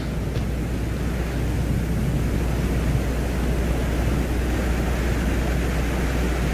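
Sonified spacecraft data playing as a steady low rumbling hiss over a constant low hum, with no distinct events.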